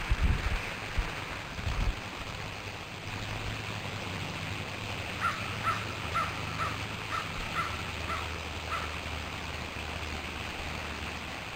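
A bird calling outdoors: a run of about eight short, evenly spaced calls, roughly two a second, in the middle of the clip, over a steady outdoor hiss. A few low thumps come in the first two seconds.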